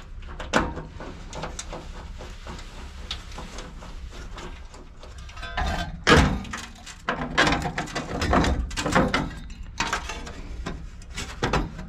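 Metal clicking, scraping and clanking as nuts are run off with a nut driver and an evaporator fan motor with its bracket is worked loose from the sheet-metal fan shroud. The loudest clatter comes about halfway through, and a steady low hum runs underneath.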